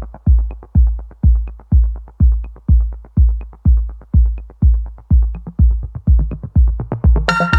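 Electronic background music: a steady kick drum about twice a second with light ticking between beats, joined near the end by a sustained synthesizer chord.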